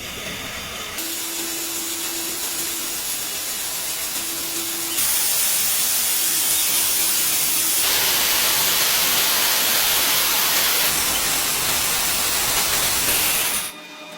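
Steady hissing spray. It gets louder about five seconds in and cuts off abruptly near the end.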